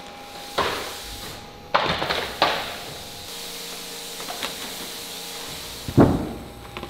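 Wooden furniture panels being handled on a work table: four sharp knocks and thuds, each fading quickly, the loudest and deepest about six seconds in, over a steady machine hum.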